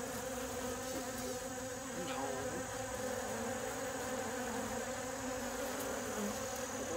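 Honeybees buzzing around their hive: several overlapping hums that waver a little in pitch as individual bees fly past. It is a small colony that has just returned to the hive.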